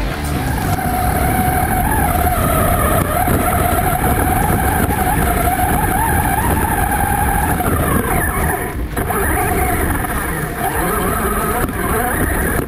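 Small RC car's motor whining as it drives, its pitch wavering up and down with the throttle over rough tyre and running noise, with a brief dropout about nine seconds in.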